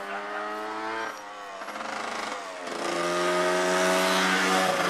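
A motorcycle engine running hard on the street, its drone breaking and changing pitch about a second in and again about two and a half seconds in, getting louder as it comes closer, then easing off near the end.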